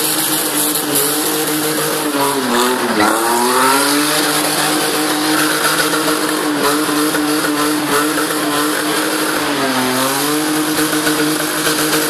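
BMW drift car's engine held at high revs as the rear tyres spin and smoke, with a steady hiss of tyre noise; the revs dip and climb back twice, about three seconds in and again near ten seconds.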